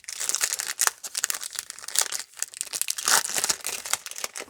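A foil trading-card pack wrapper crinkling as it is torn open and handled, a dense run of crackles throughout.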